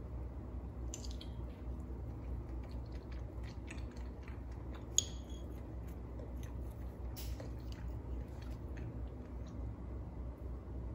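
Light clicks and taps of wooden chopsticks against a small ceramic plate and a glass as a soft gummy candy piece is set down, with one sharper tap about five seconds in. A steady low hum runs underneath.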